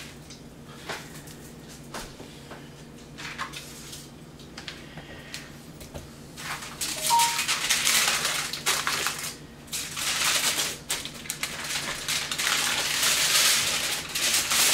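Aluminium foil crinkling and rustling as it is folded and wrapped around a whole fish: a few light crinkles at first, then dense, louder crackling from about halfway through.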